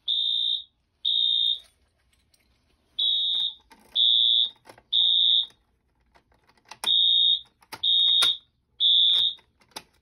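Wheelock AS fire alarm horn sounding after a pull station is activated. Its high-pitched electronic tone comes in the temporal-three evacuation pattern: groups of three half-second blasts, with a pause of about a second and a half between groups.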